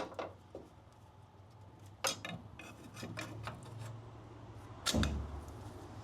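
Metal knocks, clinks and scraping of tools working a Porsche 912's rear spring plate off its torsion bar, still tight under tension: a sharp knock about two seconds in, a few lighter clicks, and a heavier clunk near the end.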